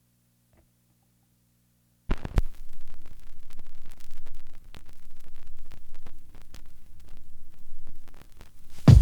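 Silence for about two seconds, then crackling static with many small clicks over a low steady hum, fluctuating in level, as the track's noisy intro runs before the beat comes in.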